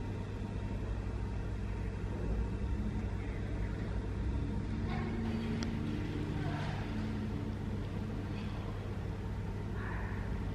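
Steady low rumble of airport ambience heard from inside the terminal, with faint distant voices now and then.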